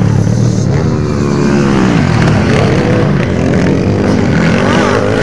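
Motocross dirt bikes revving hard as they pass close by on the track, the engine pitch dropping and climbing several times as the riders shift and get back on the throttle.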